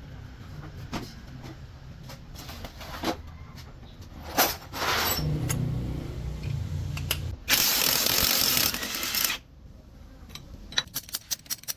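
Metal tool work on a truck gearbox: scattered clicks and clinks, then a loud rushing hiss for about two seconds past the middle, and a quick run of ratchet-like clicks near the end.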